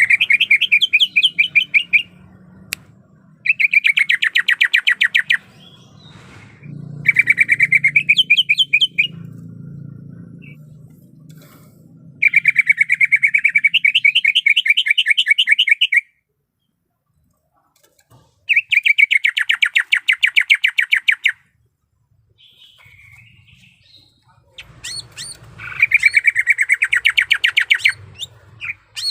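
Female greater green leafbird (cucak ijo) calling, the call of a female in breeding condition calling for a male. The calls come as fast runs of sharp, evenly repeated chirps in about six bursts of two to four seconds each, with short pauses between.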